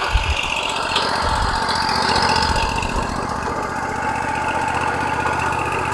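Woodmizer LT40 Wide sawmill's engine running steadily, with a couple of low thumps in the first second and a half.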